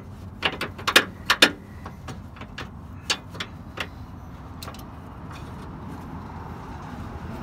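Ratchet wrench clicking in short bursts as the bumper bracket bolts are tightened. The clicks come thickly for about a second and a half, then thin out and stop about five seconds in, leaving a low steady hum.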